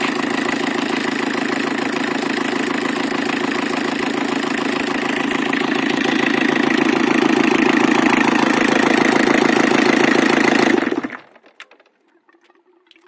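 30 hp Thornycroft T80 four-cylinder marine diesel engine running steadily, growing somewhat louder about halfway through. Near the end it is shut down and dies away within about a second, leaving faint ticks and drips.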